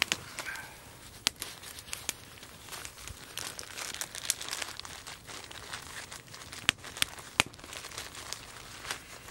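Crinkling and rustling of a small packet or wrapper being worked open by hand, with a few sharp snaps scattered through, the loudest two thirds of the way in.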